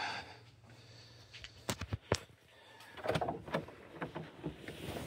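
Handling noise from a handheld camera carried while walking, with rubbing and rustling and a few sharp knocks and clicks: two close together about two seconds in and a scattered run from about three seconds on.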